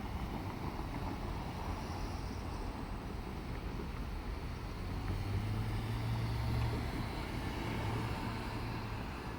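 Diesel railcar engine running, a low hum that grows stronger about five seconds in, over steady outdoor noise.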